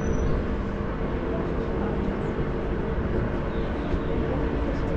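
Steady noise of the cruise ship Caribbean Princess under way: an even, low rumble with a constant machinery hum running through it.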